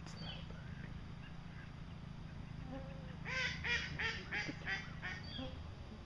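Waterfowl calling: a quick series of about six or seven calls, roughly three a second, starting about three seconds in, over a steady low background rumble.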